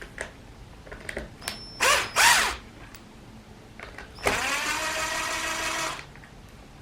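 Power drill-driver backing out screws: two short spins, each rising and falling in pitch, then a steady run of under two seconds, with a few small clicks beforehand.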